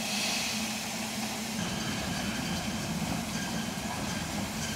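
Narrow-gauge steam locomotive standing with the train, giving a steady low drone under an even hiss.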